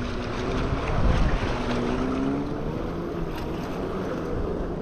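Wind buffeting the microphone and small waves lapping on a rocky lake shore, while a spinning reel is cranked to bring in a hooked bass.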